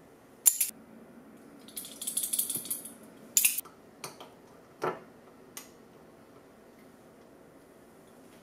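Small clicks and clinks of glass spice jars, their caps and a metal measuring spoon being handled and set down on a stone counter, with a brief rattle about two seconds in. The sounds come as a handful of separate sharp knocks, the last near the middle.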